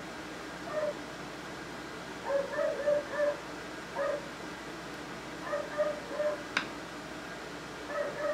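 A dog whimpering: short high whines in clusters of three or four, repeating every second or two. A single sharp click comes about six and a half seconds in.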